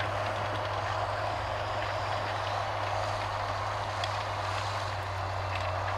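Farm tractor engine running steadily under load while plowing, an even, unbroken drone.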